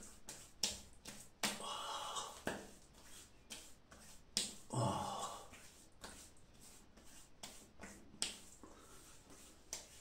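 Hands slapping and patting aftershave onto freshly shaved face and neck: a scatter of short sharp slaps, with two longer hissing sounds about one and a half and four and a half seconds in.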